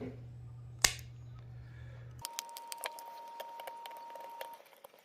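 Light clicks and ticks of small tools picking at the battery's adhesive pull tabs inside an opened iPhone 8 Plus: one sharp click about a second in, then rapid faint ticking, under a faint steady high tone for a couple of seconds.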